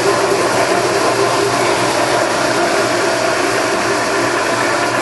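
LeBlond Regal toolroom lathe running under power, its gear train giving a steady mechanical hum, with the half nut engaged and the carriage feeding for threading.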